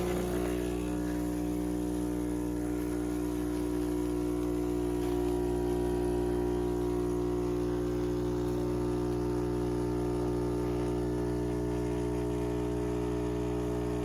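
Philips 4300 Series espresso machine running with a steady, even hum of several held tones, typical of its pump working through a brew.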